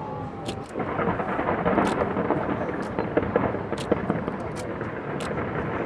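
New Year's fireworks going off in a continuous barrage: a rolling rumble of booms with sharp crackling pops several times a second.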